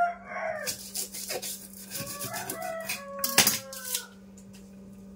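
Lemongrass stalks being bruised flat with a hard tool on a kitchen surface: a run of irregular knocks and taps, the loudest about three and a half seconds in, stopping about a second later.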